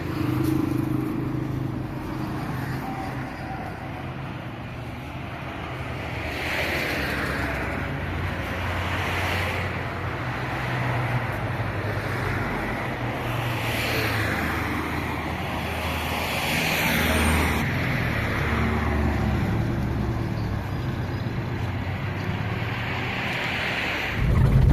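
An engine running steadily with a low hum, with several louder swells of hissy noise coming and going.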